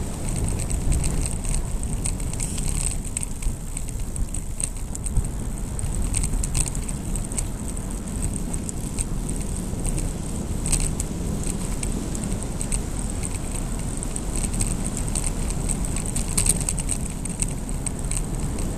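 Wind rushing over an action camera's microphone on a bicycle descending at speed, with scattered sharp clicks and rattles from the bike and mount over the road surface.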